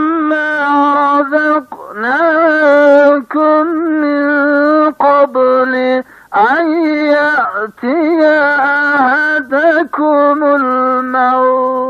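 A single unaccompanied voice chanting a slow melodic line, holding long notes with wavering ornaments and pausing briefly for breath every one to two seconds.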